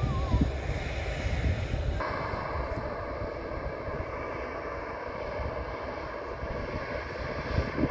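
Jet airliner engine noise: a low rumble from a distant airliner on the runway, then, from an abrupt change about two seconds in, the steady engine whine of an easyJet Airbus A320-family jet rolling along the runway.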